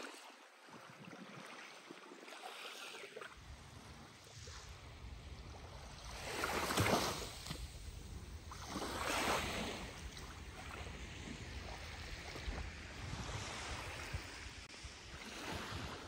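Small waves of a calm Baltic Sea lapping and washing on a sandy shore, two fuller swells of wash about seven and nine seconds in. A low rumble of wind on the microphone comes in about three seconds in.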